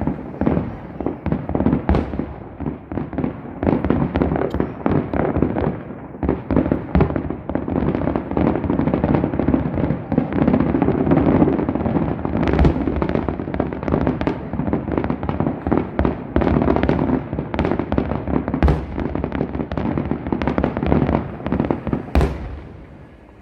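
Aerial fireworks going off in a dense, rapid barrage: many shells bursting with overlapping bangs and crackles, thickening into a near-continuous rumble, with one last loud bang shortly before the end.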